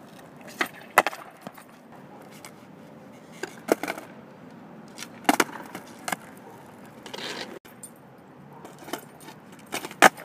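Skateboards popping and landing on concrete during flatground flip tricks: a series of sharp wooden clacks, about eight in all, from the tails snapping and the boards slapping down.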